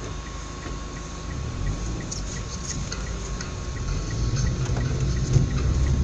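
Car's turn-signal indicator ticking steadily, about three ticks a second, as the car makes a turn at an intersection; the ticking stops about four seconds in as engine and road rumble grows with the car picking up speed.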